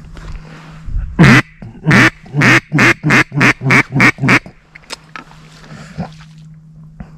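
Duck call blown close by: one long quack, then about eight loud quacks coming shorter and quicker in a falling cadence, the calling a hunter uses to draw in circling ducks.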